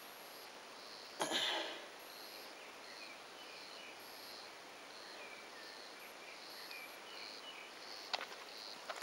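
Faint outdoor ambience of insects chirping in short, high-pitched pulses that repeat throughout, with a few faint thin bird-like notes. About a second in comes a brief rustling scrape, the loudest sound, and a sharp click near the end.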